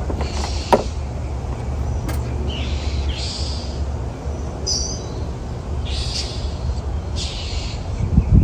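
A bird calling repeatedly, about five hoarse calls roughly every second and a half, over a steady low rumble, with a couple of sharp knocks early on.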